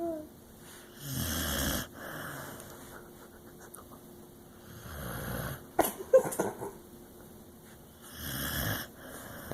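Dog snoring: three long, rasping breaths a few seconds apart. Just after the middle snore comes a short burst of clicky snuffling, the loudest moment.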